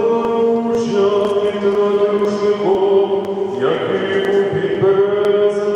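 Church choir chanting a slow liturgical hymn in long held notes, several voices sounding together, each phrase sliding onto a new pitch every few seconds.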